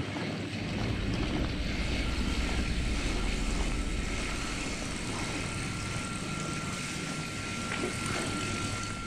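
Steady low rumble inside a road tunnel while riding a bicycle through it, with a thin steady whine that comes in about a second and a half in.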